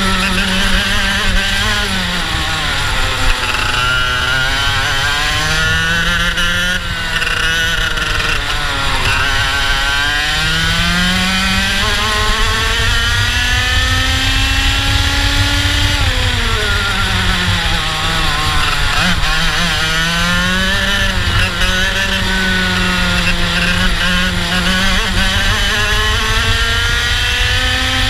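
IAME two-stroke kart engine at race pace, heard close up from the kart, its pitch climbing on the straights and dropping back when the driver lifts for the corners, several times over. The longest climb comes down the main straight, halfway through, before it falls away into the next bend.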